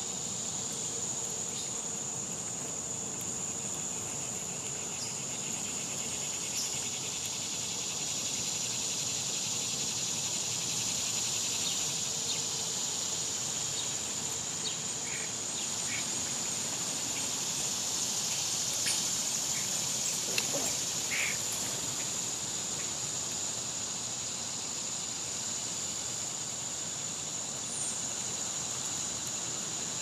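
Steady high-pitched chorus of summer insects, with a few brief faint ticks and chirps about halfway through.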